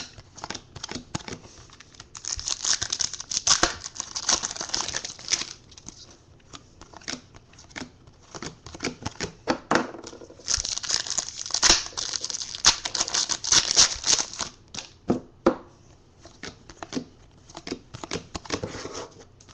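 Trading card packs of Contenders football cards being torn open and handled: the plastic wrappers crinkle and tear in two longer spells, amid many sharp clicks of packs and cards being handled.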